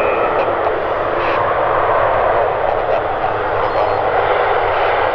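ATR 72-500 turboprop airliner rolling along the runway after landing, its two Pratt & Whitney Canada PW127 engines and propellers making a loud, steady noise.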